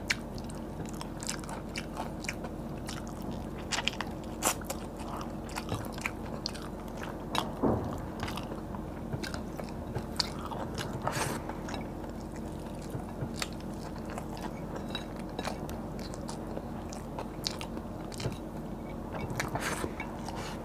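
A person eating fried tilapia and rice by hand: chewing and crunching, with many scattered sharp clicks and crackles as fingers pick at the fried fish.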